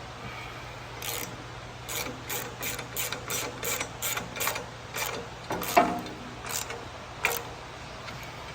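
Ratchet wrench with a 19 mm socket tightening a bolt, clicking with each back-swing at roughly three strokes a second, with one louder metal knock near six seconds in; the clicking stops about seven seconds in as the bolt is snugged up.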